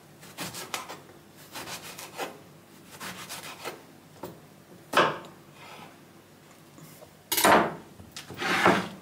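A knife chopping carrots and peppers into small pieces on a cutting board: a string of short, irregular cutting strokes, one sharper knock about halfway, and two louder, longer scrapes near the end.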